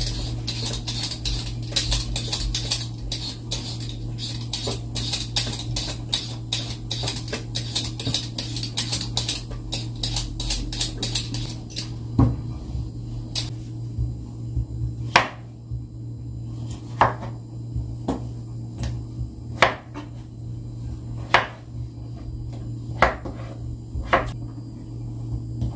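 Potatoes being peeled by hand over a stainless steel sink, with quick scraping strokes several times a second. About halfway through this gives way to a knife cutting potatoes on a wooden cutting board, a sharp knock every second or two, over a low steady hum.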